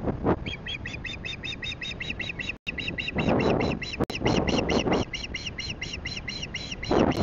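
Osprey calling in a fast, even run of high chirps, about five a second, starting about half a second in. Gusts of wind buffet the microphone, loudest about three seconds in, around four and a half seconds, and near the end.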